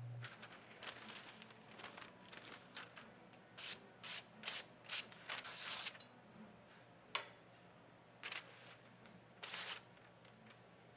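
A freshly sharpened wrought-iron san mai bunka knife, first stroked across a sharpening stone, then slicing through a held sheet of newspaper. Each stroke and cut is a brief, soft papery hiss: a quick run of them in the middle, then a few single cuts spaced out.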